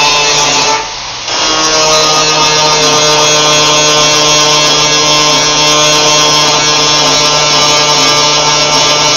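Electric grinder running steadily with a high motor whine, working the car's trunk sheet metal; it eases off for a moment about a second in, then comes back to full speed.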